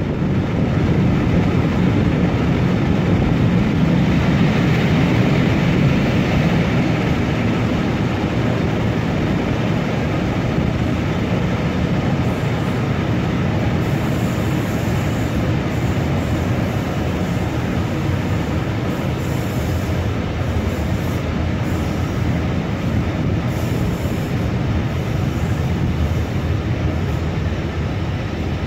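Charter train's coaches running along the line, heard from just outside an open window: a steady rumble of wheels on the rails, a little louder for the first few seconds.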